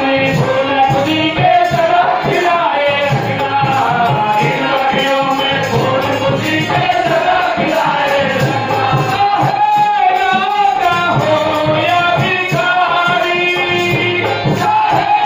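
Male lead singer singing a Hindi devotional bhajan into a microphone, accompanied by drum and steady jingling percussion.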